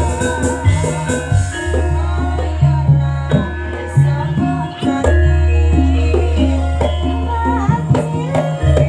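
Live campursari music: long deep bass notes under repeated percussion strikes and a pitched melody line that wavers near the start.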